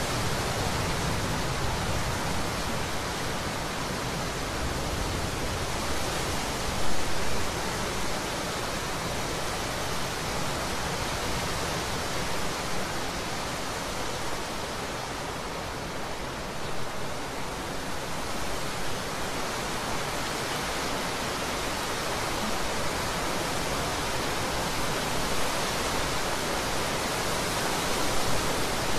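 Heavy rain pouring down steadily, a dense even hiss, with one brief louder spike about seven seconds in.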